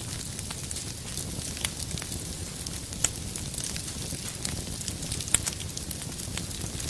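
Wood fire burning with a steady low rumble and scattered sharp crackles and pops of the firewood, the loudest about three seconds in and again a little past five seconds.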